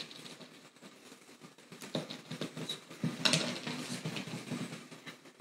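Faint scattered knocks and shuffling as a person walks barefoot across a floor mat and sits down, with quiet room noise between them.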